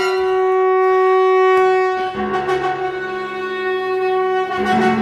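Chamber ensemble playing sustained music: a wind instrument holds one long, steady note that swells over the first second or two, and lower held notes enter beneath it about two seconds in.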